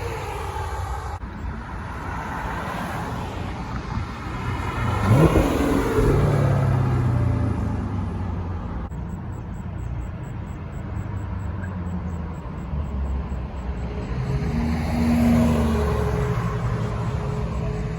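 Muscle-car engines running at a car meet, with one engine revving sharply about five seconds in, the loudest moment, and another swelling in level around fifteen seconds.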